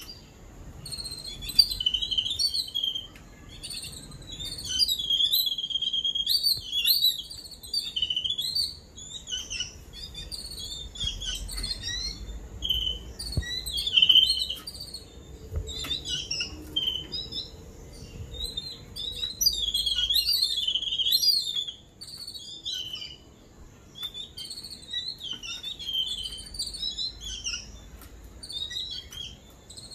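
A group of babblers calling in a continuous, overlapping chatter of harsh, squeaky notes, as adults gather to feed caged chicks.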